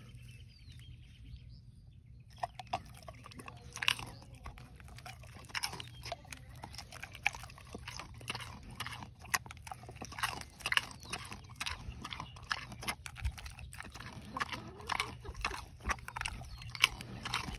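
A pig crunching and chewing peanut butter pretzels, a quick irregular run of crisp crunches that starts about two seconds in.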